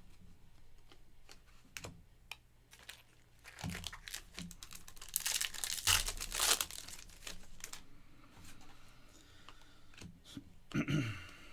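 Plastic wrapper of a sports-card pack being torn open and crinkled, loudest in a burst of crackling around the middle. Scattered light clicks come from cards being handled.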